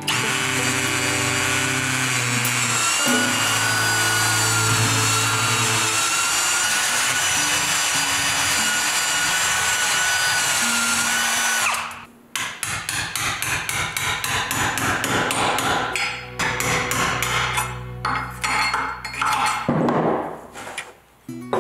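Cordless drill boring into the old wooden handle stuck in an axe head's eye, the motor whining steadily for about twelve seconds. It is followed by a quick run of sharp knocks, with background music with low held notes underneath.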